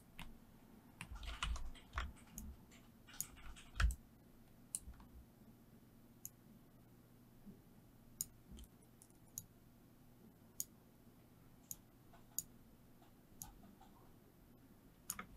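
Faint, scattered clicks of a computer mouse and keyboard, bunched in short runs in the first few seconds and then coming singly every second or so.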